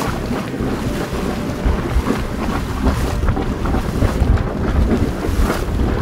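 Steam vent in a mud pot hissing, with wind buffeting the microphone, making a loud, steady rushing noise.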